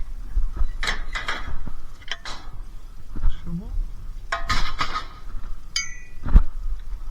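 Loose scrap metal and old hand tools clinking and clanking in irregular knocks as they are handled and tipped out, with one short metallic ring near the end.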